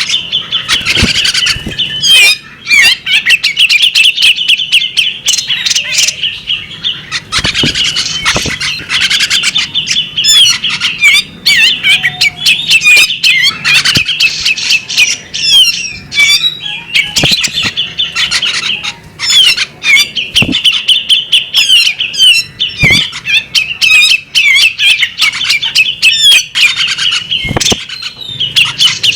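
Female magpie robin singing without pause: a fast, busy stream of warbled and chattering notes, laced with many sharp, clipped calls.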